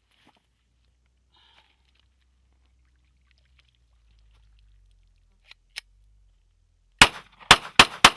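Glock 17 9 mm pistol firing four quick shots in just over a second, after two faint clicks of handling. The pistol has been fouled with sand and water as a torture test.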